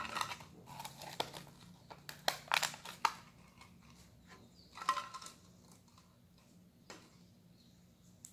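Small folded paper slips rustling and crinkling as they are drawn and unfolded by hand, in short scattered crackles that thin out in the second half.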